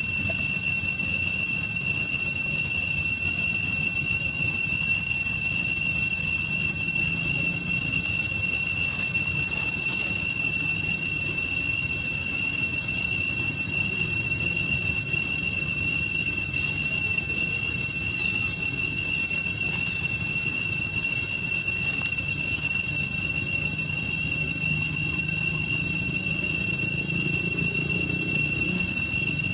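Steady, high-pitched insect drone, unchanging throughout, over a low background hum.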